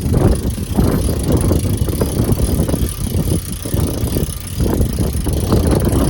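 Wind buffeting the microphone in heavy, irregular gusts over the low, steady drone of the catamaran's engines running under way.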